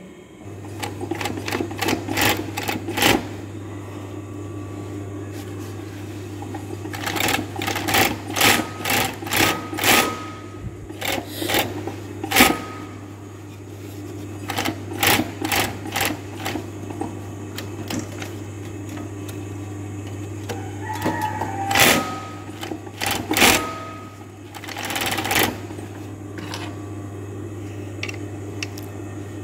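Kansai Special multi-needle sewing machine's motor starts about half a second in and hums steadily, with several short runs of clacking stitching and knocks as denim is test-sewn through a newly fitted waistband folder. These are trial runs to check that the folded lap is even on both sides.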